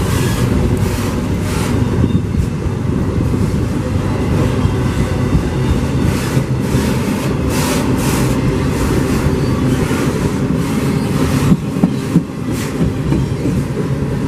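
CPKC freight train rolling past: a steady, loud low rumble of railcars with repeated clacks of the wheels over the rail joints.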